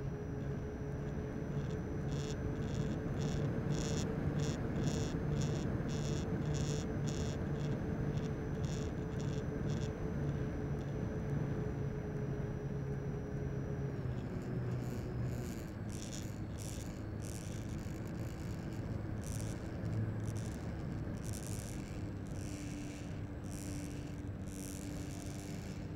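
Electric motor of a radio-controlled model airplane running steadily in flight, heard from a camera on board, over a rush of air. There is a rattling about two times a second for several seconds, and about fourteen seconds in the motor's pitch steps down.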